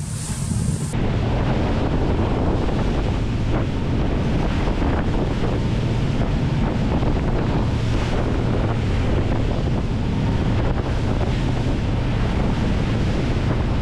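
Wind buffeting the microphone and the rush of sea water past the hull aboard a tour boat running at speed, with the steady low drone of its engines underneath.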